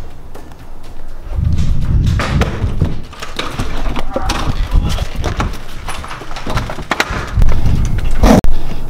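Handling noise from a handheld camera being jostled and swung about: a heavy rumble with many knocks and bumps, and a loud thud near the end.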